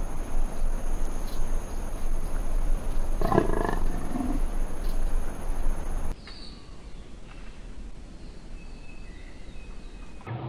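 A tiger growls once, briefly, about three seconds in, over a steady noisy background. Just after six seconds the sound drops suddenly to a quieter background with a few faint high chirps.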